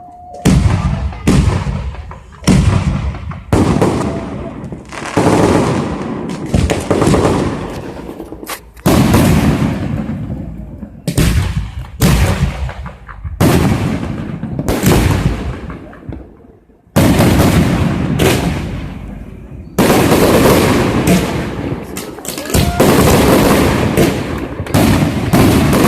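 Fireworks going off in a long series of loud bangs, each fading out with an echo, about one a second. From about two-thirds of the way in they come in a dense, almost continuous barrage.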